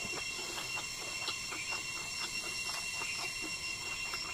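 A man chewing a mouthful of rice and egg close to the microphone, with short wet mouth clicks about three times a second. A steady high-pitched whine runs underneath.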